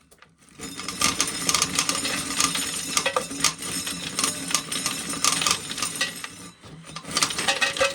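Corn sheller running as ears of corn are fed through it, with a dense clattering rattle of kernels and cobs over a steady hum. It starts about half a second in, eases off briefly near the end, then picks up again.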